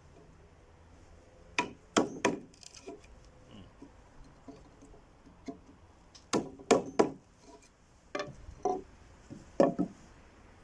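Square file being tapped into a mortise in wood to square its sides: sharp wooden knocks in groups of two or three.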